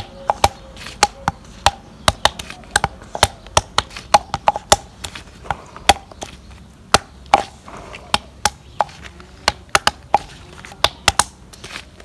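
Olives being cracked one after another for curing: sharp knocks on a hard surface, about three a second in an uneven rhythm, some coming in quick pairs. The olives split at the first touch, which is taken as a sign of their good oil.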